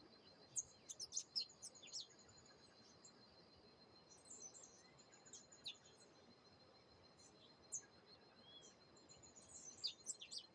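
Songbirds chirping faintly in three clusters of quick, sharp high notes, about a second in, midway, and near the end, over a steady high pulsing trill of insects.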